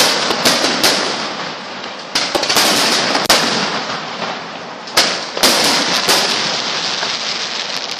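Aerial fireworks bursting overhead: sharp bangs in quick clusters of two or three, several seconds apart, over a steady rough noise between them.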